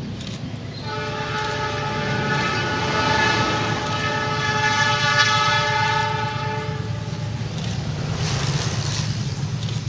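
Horn of a CC206 diesel locomotive hauling a loaded cement train: one long blast of several notes together, starting about a second in and held for about six seconds, then cut off. A low rumble runs underneath throughout.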